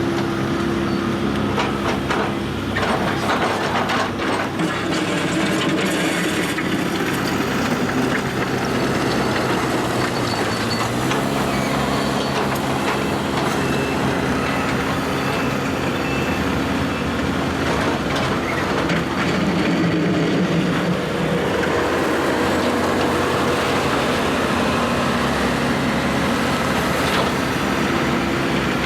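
John Deere 160G excavator's diesel engine running steadily as the machine works, its note shifting about eleven seconds in, with a few knocks and clanks in the first several seconds.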